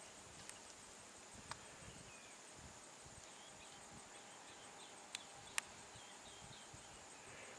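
Faint outdoor ambience: a steady high insect drone with a few faint bird chirps toward the middle and several sharp clicks, the loudest about five and a half seconds in.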